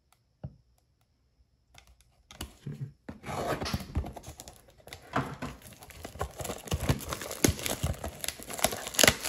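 Retail trading-card box being opened and its cellophane-wrapped packs handled: plastic crinkling and tearing with light clicks, starting about three seconds in after a near-silent start and loudest near the end.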